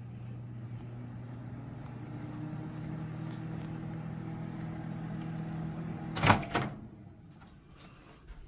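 Café CEB515P4NWM countertop convection microwave oven running with a steady hum. About six seconds in come two loud clunks, and the hum dies away.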